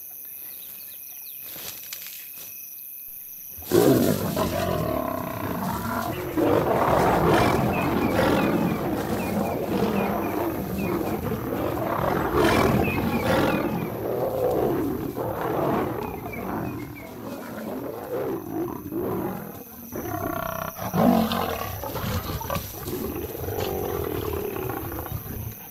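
Insects chirp steadily, then about four seconds in lions break into a fight: a sudden burst of loud growling and snarling that rises and falls in waves, with a fresh burst near the end. This is a nomad male lion charging two lionesses defending their cubs.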